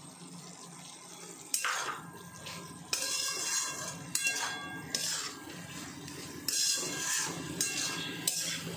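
A metal spatula scraping and knocking against a metal kadai as chicken pieces and vegetables are stirred, in separate strokes about every second.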